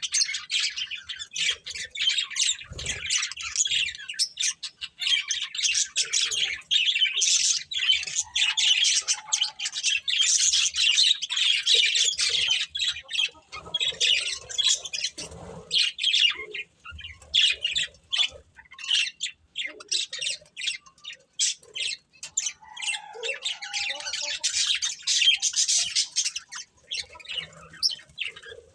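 Budgerigars chirping and chattering, a busy, almost unbroken stream of short high chirps.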